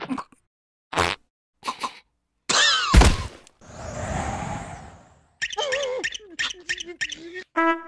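Cartoon sound effects and wordless character vocals: a few short knocks, a voice sliding down in pitch that ends in a sharp hit, a breathy whoosh lasting about two seconds, then a wavering voice with clicks. Brass music comes in near the end.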